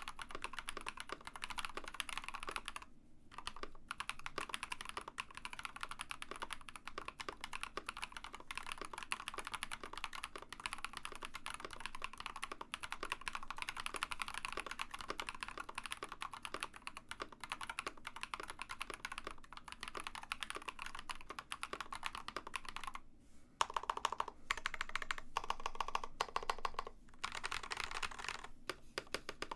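Fast typing on an Ikki68 Aurora mechanical keyboard with Builtbynim long-pole linear switches (POM stem, nylon top housing, polycarbonate bottom housing): a dense run of clacky keystrokes. It pauses briefly about three seconds in and again near 23 seconds.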